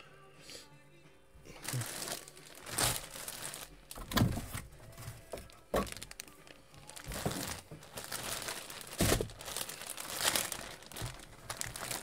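Plastic bag crinkling and rustling in irregular bursts as a bagged jersey is pulled out of a cardboard box and handled. It starts about a second and a half in.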